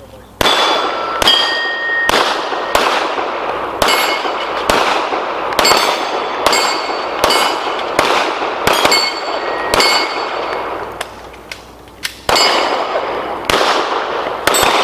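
A rapid string of pistol shots at steel plates. Hit plates ring with a clear metallic ping after the shots, which come roughly every two-thirds of a second. Near the end there is a pause of about two seconds before the shooting resumes.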